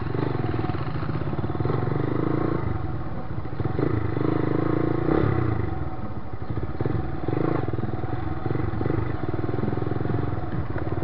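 Motorcycle engine running at low speed, its pitch rising and falling a little.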